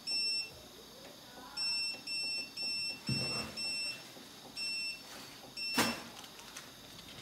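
Growatt SPF5000ES solar inverter's control panel beeping as its buttons are pressed: about eight short, high beeps, several in quick succession, each one acknowledging a key press. A sharp knock comes near the end.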